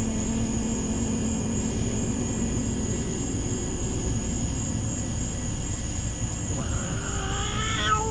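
Dog howling: one long howl falls away and ends just after the start, and a new howl rises steeply in pitch near the end. Between the howls there is a steady low rumble and a constant high-pitched whine.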